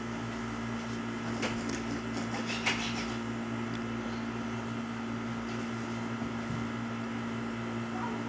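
Steady mechanical hum of a household appliance, with a couple of light clicks or knocks about one and a half and nearly three seconds in.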